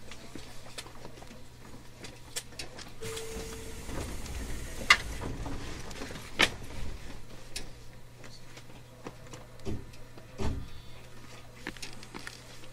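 Inside a JR Kyushu 813 series electric train: a steady low hum with scattered clicks and knocks, and a brief steady tone about three seconds in. No traction-motor whine is heard.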